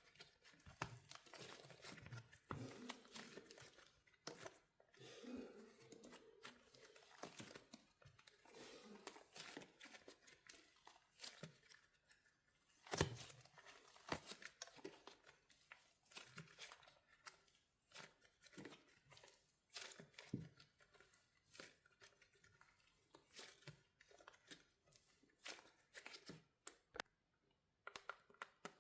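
Quiet, irregular crackling and snapping of a wax coating on a soft soap squishy as it is squeezed and cracked, with soft crinkling, tearing sounds between the snaps. One sharper snap comes about halfway through.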